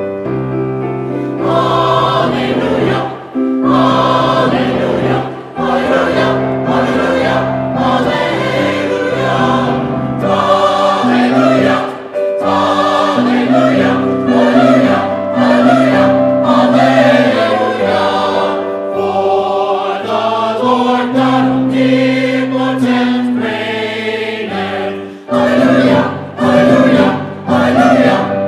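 Choir singing a Christmas carol, with the congregation invited to sing along, in phrases of held notes.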